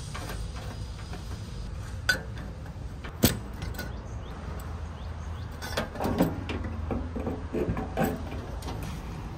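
Short piece of EMT metal conduit being handled and pushed into a conduit box hub: scattered metallic knocks and scrapes, the loudest a sharp knock about three seconds in, then a cluster of rattling knocks in the second half, over a steady low rumble.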